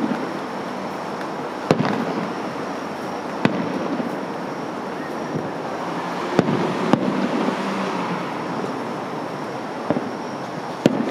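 Aerial firework shells bursting at a fireworks display: about six sharp bangs a second or more apart, two of them close together midway, over a steady rushing background.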